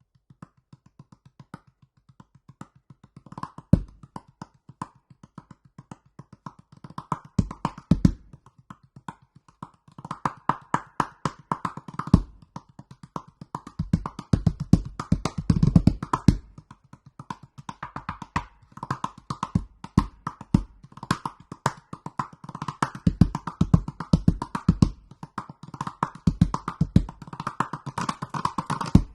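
Extra-large 47 cm calabash gourd played by hand as a drum: quick, dense finger taps in a running groove, with deep bass thumps struck now and then. The playing fills out and grows louder about a third of the way in.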